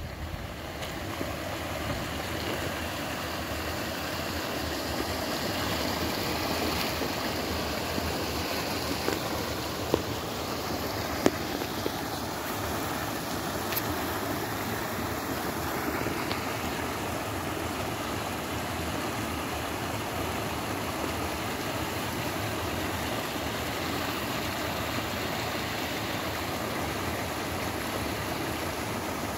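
Creek water rushing over a small spillway and churning into the pool below, a steady, even rush. Two brief sharp clicks stand out about ten and eleven seconds in.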